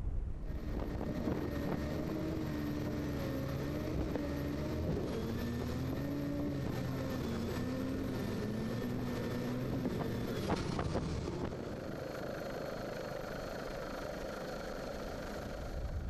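Racing powerboat engines running at speed, their pitch wavering up and down as the revs change. About eleven seconds in the sound changes to a steadier engine drone with rushing noise.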